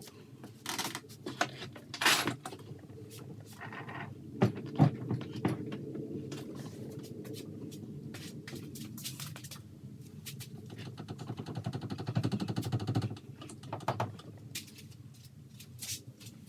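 Hand tools and metal parts clinking, knocking and scraping during work on a Sea-Doo's drive shaft coupling, in scattered sharp hits with a rapid rattling for about two seconds near the end.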